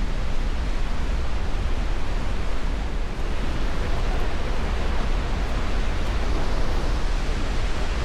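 Goðafoss, a wide horseshoe-shaped waterfall, rushing with a steady, unbroken roar and a deep low rumble.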